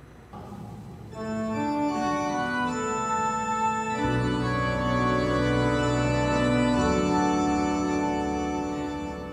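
Organ playing slow, sustained chords, with a deep bass entering about four seconds in and fading near the end.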